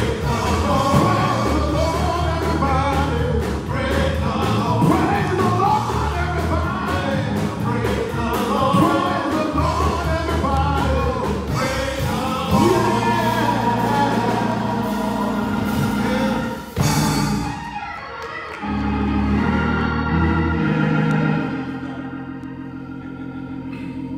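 Gospel singing by a group of men with instrumental backing and a steady beat. About 17 seconds in the song stops, and an organ holds sustained chords that fade toward the end.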